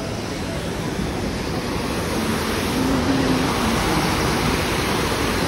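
Water rushing and splashing down a low spillway in a theme-park water feature, a steady wash of noise.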